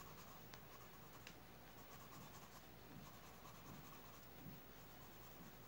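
Faint scratching of a graphite pencil on drawing paper, short strokes drawing hair, with a few light ticks.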